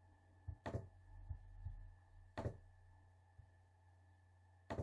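Three sharp computer mouse clicks, a second or two apart, with a few soft low thumps between them over a faint steady electrical hum.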